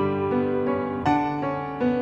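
Background piano music, a new note or chord struck about every half second.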